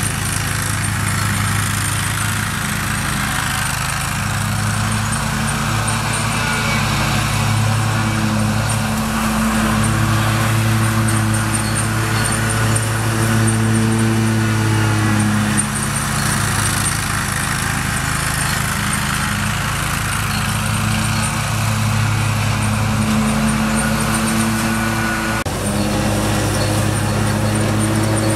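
John Deere 915B zero-turn mower with a 25 hp Kohler engine, running steadily under mowing load with its blades cutting. Its even engine note swells and fades as the mower works along the grass and turns.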